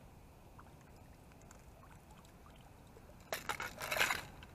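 Brief splashing and crunching of water and slush at an ice-fishing hole as fishing line is handled over it, a scratchy burst lasting about a second near the end.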